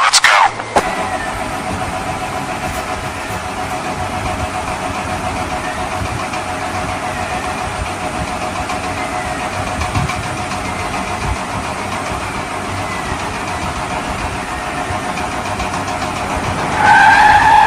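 Steady car engine running sound, like an idling motor, with a faint constant tone over a low rumble. About a second before the end, a louder high wavering squeal comes in.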